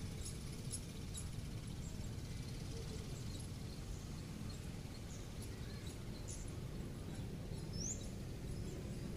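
Outdoor background: a steady low rumble with small birds chirping now and then, including one short rising chirp near the end.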